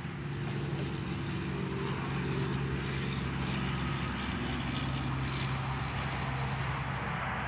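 An engine running steadily, a low hum that holds one pitch.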